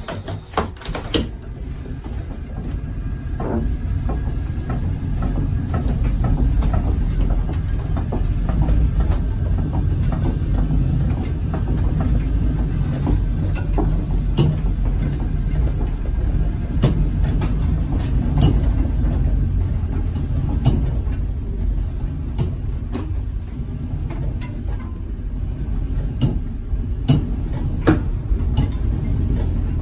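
An electric trolley line car rolling along the rails: a steady low rumble that grows louder over the first few seconds, with scattered sharp clicks and knocks.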